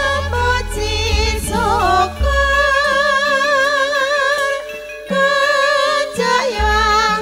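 Female vocalists singing a Javanese langgam in campursari style, holding long notes with vibrato over a band with low bass notes.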